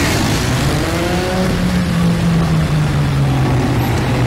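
BMW F650GS motorcycle engine running at low speed through tight turns, its note rising with the throttle and then easing off to a steady lower pitch for the second half.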